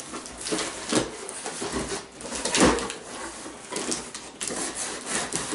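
Box cutter slitting the packing tape on a cardboard box, then cardboard flaps scraping and rustling as the box is pulled open, with a few sharp knocks and rattles.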